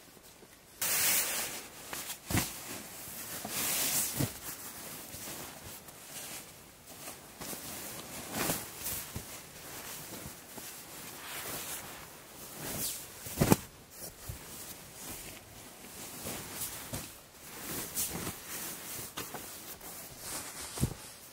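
Handling noises: irregular rustling, loudest about a second in, with several short sharp knocks, the sharpest about thirteen seconds in.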